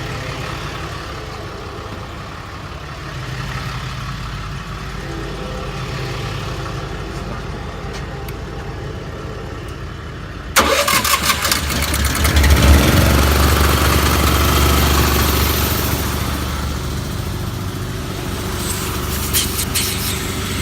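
Ram 4500's 6.7 Cummins diesel idling, then about halfway through the service-body air compressor starts suddenly, surges up and settles into steady running as it builds air.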